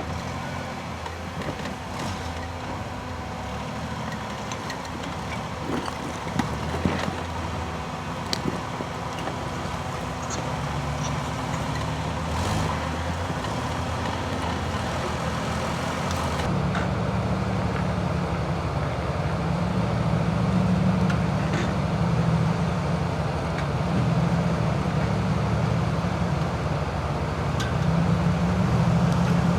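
Off-road 4x4 engine running at low revs while driving over rough terrain, growing louder about halfway through, with a few scattered knocks in the first half.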